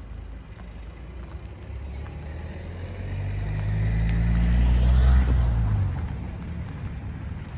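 A car driving past: its engine and tyre noise swell over about three seconds, loudest about five seconds in, then fall away quickly.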